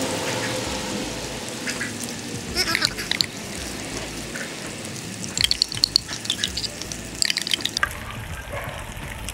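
Bacon and freshly poured pancake batter sizzling steadily on a hot Blackstone flat-top griddle, with three brief clusters of short high chirps standing out above it.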